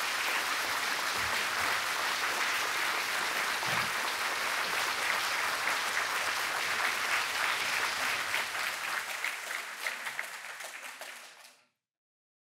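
Audience applauding in a large hall after a speech: steady clapping that thins out toward the end and cuts off suddenly near the end.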